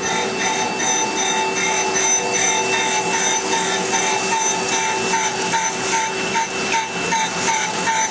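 CNC surface grinder's wheel grinding a hardened S7 tool-steel punch in the fine-grind stage. A steady mechanical hum with a few held tones, pulsing regularly several times a second.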